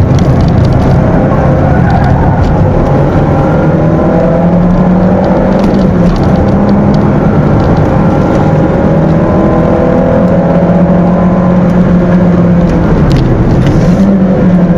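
Stock 1.6-litre four-cylinder engine of a Peugeot 206 running steadily at racing speed, heard from inside the cabin. Its pitch dips briefly about thirteen seconds in, then climbs again.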